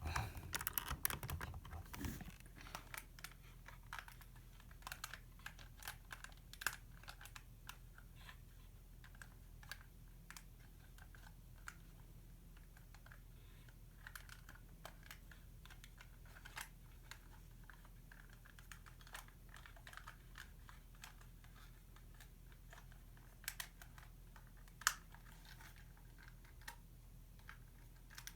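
LEGO plastic bricks and parts of a puzzle box clicking and rattling as they are pushed, pulled and turned by hand: a quick flurry of clicks at the start, then scattered light clicks, with one sharper click a few seconds before the end.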